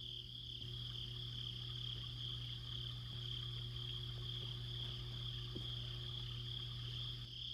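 Night ambience of crickets chirring steadily in a high, continuous band, with a low steady hum underneath.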